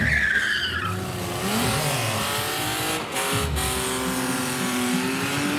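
BMW E36 3 Series saloon's engine revving hard as the car drifts and spins its rear tyres, the revs rising and falling. A high tyre squeal falls in pitch at the start.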